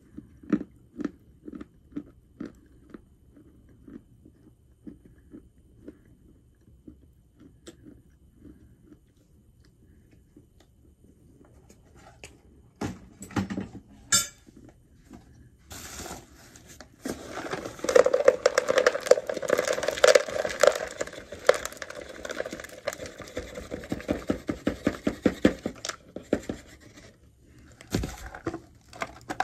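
Someone chewing hard chalk, about two crunchy chews a second. About halfway through, a long run of louder scraping and rustling handling noise takes over, with a few knocks near the end.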